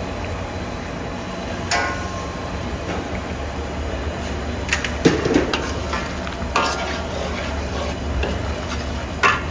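A steel ladle stirring chicken Manchurian in a metal wok, knocking and scraping against the pan a handful of times, loudest about five seconds in. Under the knocks the thick sauce bubbles and sizzles steadily.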